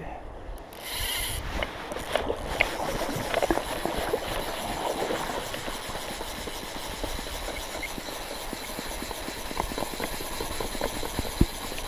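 Steady rush of running river water and wind on the microphone, with scattered faint ticks and two sharp knocks near the end, from fly rod and line handling while a freshly hooked Atlantic salmon is played.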